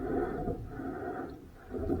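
Water sloshing and splashing around a rowing boat in repeated surges, over a low wind rumble on the microphone.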